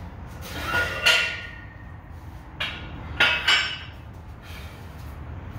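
Metal weight plates clinking against the barbell and rack as plates are changed. There is a ringing clink about a second in, a sharp knock, then two quick ringing clinks a little past three seconds.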